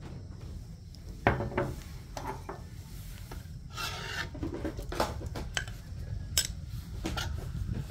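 Cookware and utensils being handled as food is served: several separate scrapes and knocks, one longer rasping scrape near the middle, over a low steady rumble.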